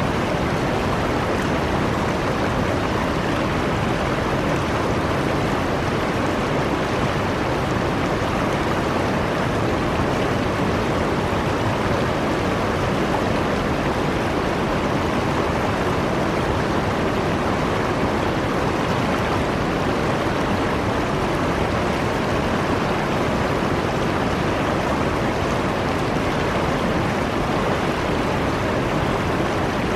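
Shallow river riffle: water rushing steadily over stones.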